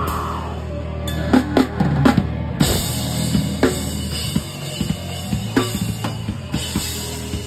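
Drum kit played hard in a loud live band: an irregular run of snare, kick and cymbal hits over a low held note from the amplifiers.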